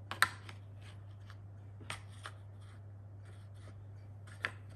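Wooden peg puzzle pieces clacking and tapping against a wooden puzzle board as a small child handles and fits them in. The sharpest, loudest click comes about a quarter second in, with more clacks near two seconds and shortly before the end, and fainter ticks between.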